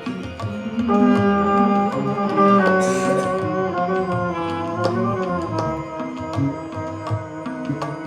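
Live small-ensemble jazz: a long held melodic note, with a waver in pitch around the middle, enters about a second in over loose, scattered hand percussion.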